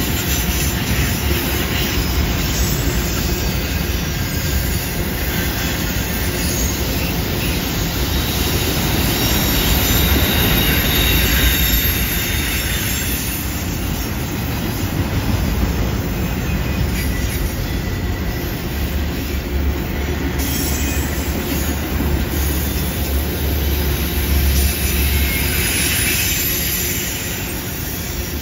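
Freight train's autorack cars rolling steadily past, with a continuous rumble of steel wheels on the rails and, at times, high wheel squeal as the cars round the curve.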